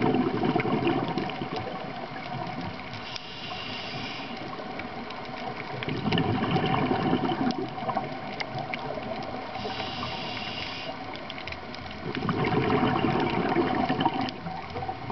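Underwater scuba breathing through a regulator: three rumbling gushes of exhaled bubbles about six seconds apart, with a short hiss of inhalation between each pair.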